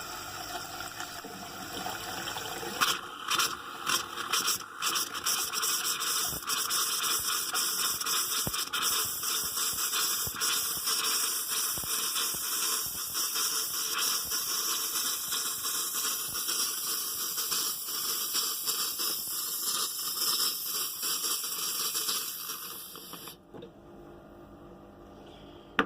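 Compressed air blowing water out of an RV's bathroom hot-water faucet line while winterizing: a steady hiss full of sputtering and spitting as the trapped water is purged. It rises about three seconds in and drops away sharply near the end.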